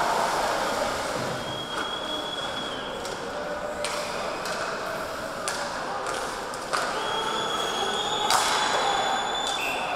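Ice hockey play heard from rinkside: skates scraping over the ice and sticks clicking on the puck against a steady hum of arena noise, with a sharper crack a little after eight seconds in.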